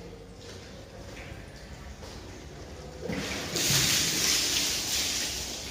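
Water poured from a bucket over a motor scooter, splashing onto it and the concrete floor. The pour starts about three seconds in and is loudest from about three and a half seconds.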